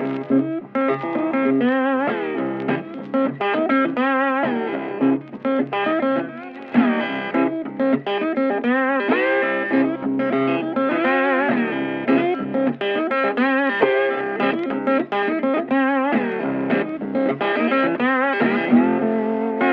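Instrumental guitar music, the lead notes bent and wavering over a steady backing.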